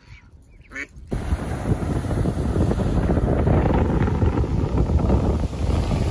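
A mallard duck's short quack, then from about a second in, loud wind buffeting the microphone over waves washing onto a shingle beach.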